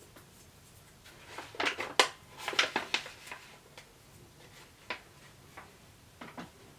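Close handling noises: a short run of crinkles and clicks about a second and a half in, then a few scattered ticks.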